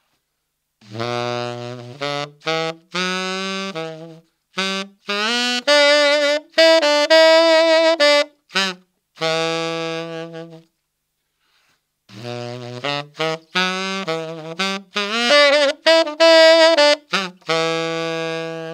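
Unaccompanied tenor saxophone playing a bluesy blues-scale lick in written F sharp minor, played through twice with a short pause near the middle. Each phrase is a run of short and held notes, with bends.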